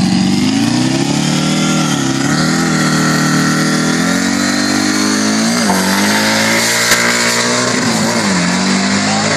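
A Nissan GT-R and a modified Volkswagen Beetle race car revving at the start line, then launching about halfway through and accelerating hard away. The engine pitch climbs and drops sharply at gear shifts.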